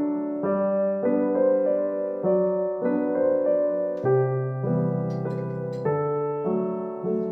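Background music: a piano tune played at an even pace, its notes and chords changing about every half second.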